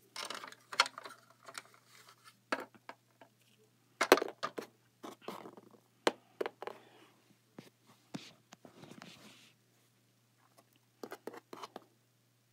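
Small plastic toy figurines being picked up, moved and set down on a sheet of cardboard: irregular light clicks and knocks with brief scrapes, the sharpest knocks about one, four and six seconds in.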